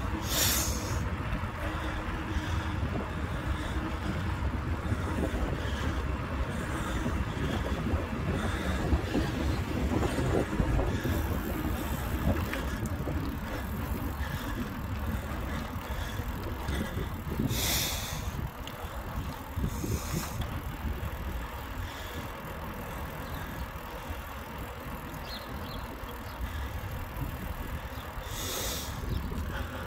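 Riding noise from a bicycle on a tarmac road: wind buffeting the handlebar-mounted phone's microphone over the rumble of the tyres. A few short hissing bursts break through, near the start, twice around the middle and near the end.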